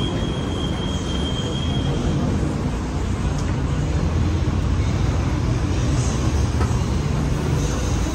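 Steady low rumble of city street traffic and a running escalator, with a thin high whine for about the first two seconds.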